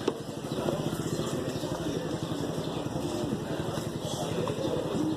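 A motor vehicle engine running, with faint voices in the background.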